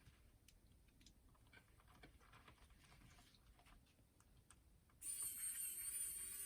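Faint scattered clicks and taps of small parts and a tool being handled on a boombox's cassette mechanism. About five seconds in, a louder steady hiss with several high steady tones starts suddenly.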